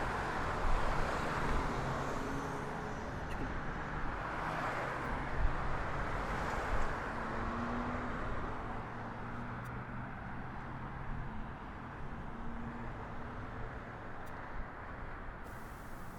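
Jet airliner engine noise: a steady rushing sound that slowly fades away as the aircraft moves off.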